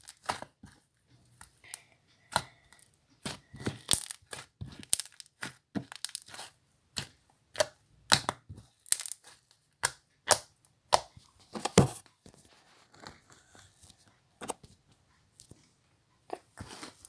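Homemade PVA-glue slime being squished and pulled by hand, giving a run of irregular sticky clicks and pops.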